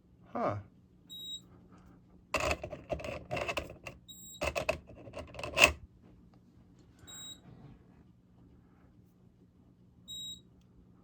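A short, high electronic beep, repeating about every three seconds. Between the beeps, about two seconds in, come two bursts of rattling and scraping handling noise, the second ending in a sharp knock.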